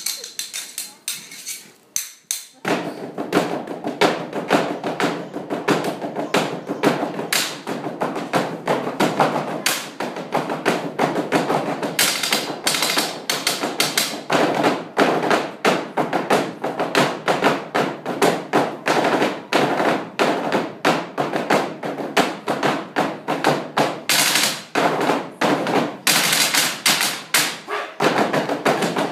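Live stage percussion: several performers beating a fast, continuous rhythm of knocks and taps on a long tabletop, coming in at full strength about two and a half seconds in.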